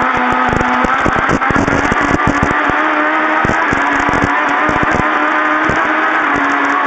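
Rally-prepared Toyota Starlet's 1800cc engine running under load at speed, its note breaking about a second in and picking up again. Many sharp knocks and clatters throughout.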